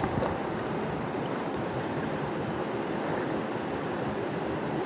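Fast-flowing river rushing steadily, an even, unbroken roar of water.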